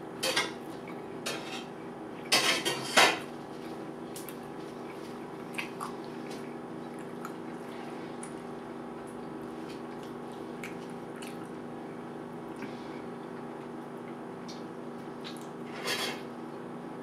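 A few short clinks and clatters of kitchenware over a steady hum, the loudest cluster about two to three seconds in and another near the end.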